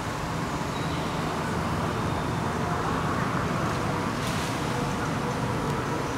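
Steady rumble of road traffic, with a brief hiss about four seconds in.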